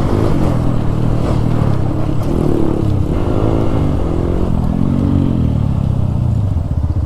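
Single-cylinder motorcycle engine running under way, its pitch rising and falling several times as the throttle is opened and closed.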